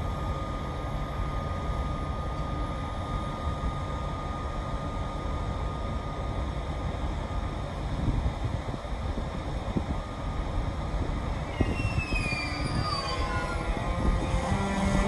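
ÖBB Taurus (class 1116) electric locomotive pulling a Railjet train slowly away from a standstill: a low running rumble with a steady electric whine from the traction equipment, which breaks into gliding and stepped tones about twelve seconds in as the locomotive picks up speed.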